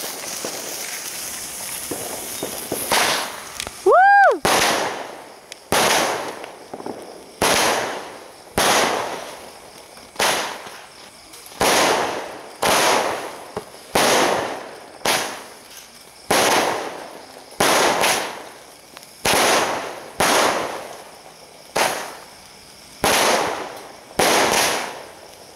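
Multi-shot fireworks cake: the fuse hisses for the first few seconds, a short whistle rises about four seconds in, then the shots go off in a steady series of about twenty bangs roughly a second apart, each fading quickly.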